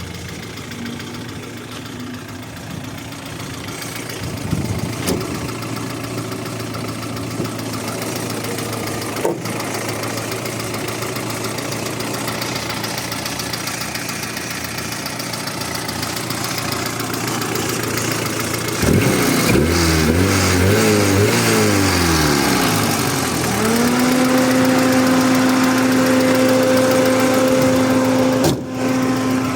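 Audi 80 B4's 2-litre four-cylinder engine, fully warmed up, idling with a knock that the owner puts down to a hydraulic valve lifter. About 19 seconds in it is revved up and down a few times. From about 24 seconds a steady hum at one fixed pitch is held.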